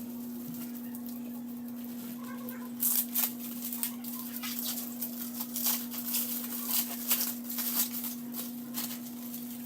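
Plastic packaging being handled and unwrapped, with irregular crinkling and clicking starting about three seconds in, over a steady low hum.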